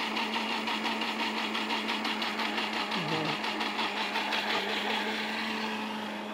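Countertop electric blender running steadily, its motor whirring as it mixes a thin liquid chocolate cake batter of milk, oil, sugar and cocoa. It gets a little quieter near the end.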